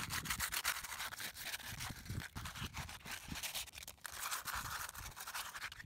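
Hand sanding with 80-grit sandpaper, rubbed back and forth over old silicone sealant residue on a fibreglass deck-plate mount. It makes a quick run of scratchy strokes.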